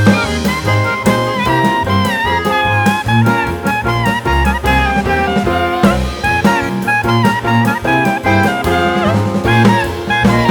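Jazz background music: a horn carries a bending, gliding melody over a stepping bass line and a drum kit.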